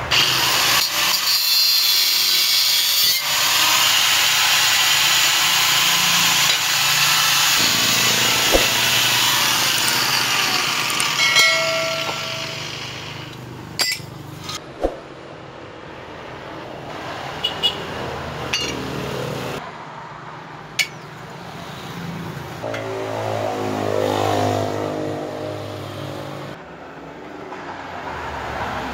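Electric angle grinder cutting and grinding the stove's steel frame: a loud, steady grinding noise for about the first twelve seconds. It then goes much quieter, with a few sharp metal taps around the middle, as of a hammer on steel.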